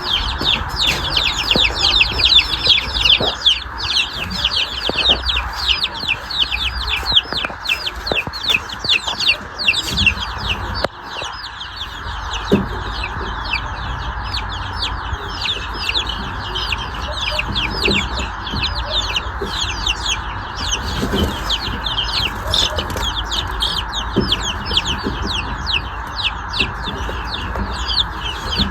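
A group of young Brahma chickens peeping continuously: many short, high calls, each falling in pitch, overlapping several times a second, over a steady hiss. The birds are stressed from being moved.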